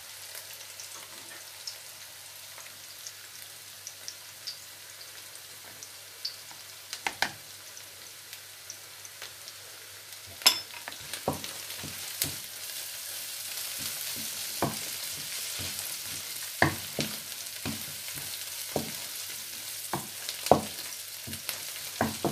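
Sliced onions, dried red chillies and curry leaves frying in oil in a non-stick wok, with a steady sizzle that grows a little louder about halfway through. A wooden spatula stirs them, scraping and knocking against the pan at irregular intervals.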